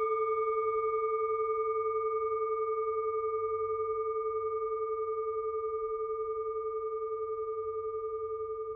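A singing bowl ringing on after a strike, one sustained tone with higher overtones, fading slowly with a gentle pulsing waver.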